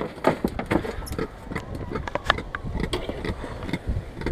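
A freshly gaffed crevalle jack and the gaff knocking against a boat's fiberglass deck and fish box as the fish is brought in: a scatter of irregular knocks and thumps, thickest in the first second, over a steady low rumble.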